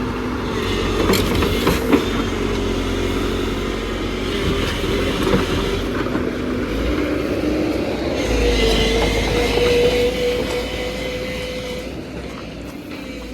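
JCB NXT 140 tracked excavator working: its engine and hydraulics run steadily, with a few sharp metallic clanks in the first two seconds and a steady whine from about eight seconds in.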